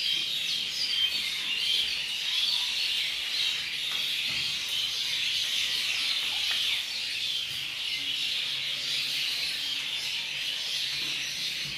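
Many small birds chirping together in a dense, steady high-pitched chorus, with no single call standing out.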